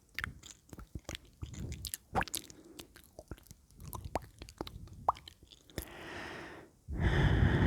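Close-microphone mouth sounds: a quick run of wet tongue clicks and lip smacks, followed by a soft breath, then a much louder rushing noise starting about a second before the end.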